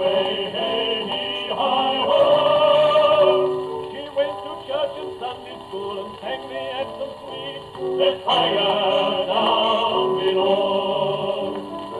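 Acoustic gramophone playing a record through a home-made 3D printed soundbox fitted with a soft tone needle: music with singing, its sound confined to the middle range with little deep bass or high treble.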